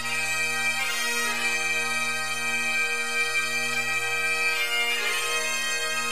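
Bagpipe music: a melody on the chanter over steady, unbroken drones.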